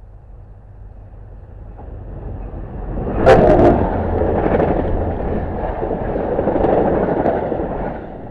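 NJ Transit commuter train passing through the station at speed: the rumble of steel wheels on rail builds, jumps sharply about three seconds in as the train reaches the platform, holds as a dense rumble and clatter while the stainless-steel cars go by, then tails off near the end.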